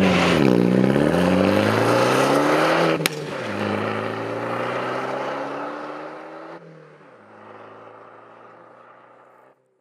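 Alfa Romeo MiTo engine and exhaust accelerating: the engine pitch climbs, drops with a sharp click about three seconds in, then climbs again more slowly as the sound fades away. It cuts off suddenly near the end.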